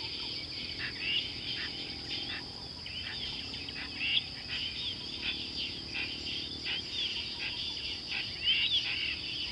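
Steady, high insect chorus with many short bird chirps and calls over it, a few louder calls about four seconds in and near the end.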